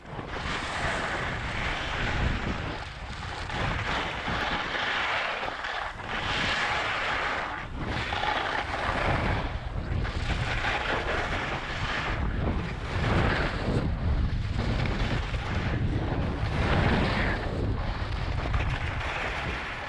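Skis scraping and chattering over icy, thin snow through a series of turns, the scrape swelling and easing every couple of seconds, with wind rumbling on the microphone.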